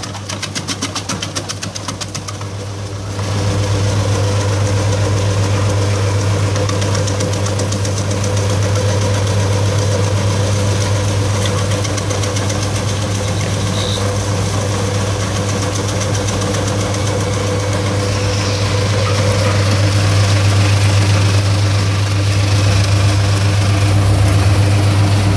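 EC312 electric vegetable chopper running steadily with a low hum, its rotating cutting disc slicing lemongrass fed through the feed tube. For the first three seconds a fast, regular ticking rides on the hum, then the machine grows louder and steadier.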